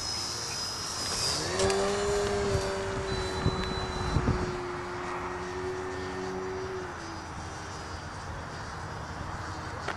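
Engine of a 72-inch Extra 330SC radio-controlled aerobatic plane: a steady drone comes in about a second and a half in, holds, and falls away around seven seconds. Gusty wind buffets the microphone with low thumps.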